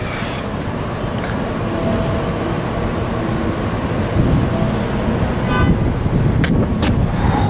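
Wind buffeting the microphone in a low, uneven rumble, with a couple of faint clicks near the end.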